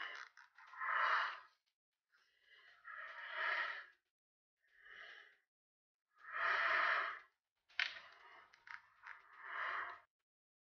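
A person breathing behind a full-face mask, about five breaths or sighs each lasting about a second, with short pauses between them, and a couple of sharp clicks in the second half.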